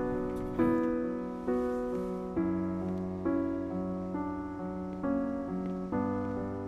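Slow background piano music: sustained chords that fade away, a new one struck about once a second.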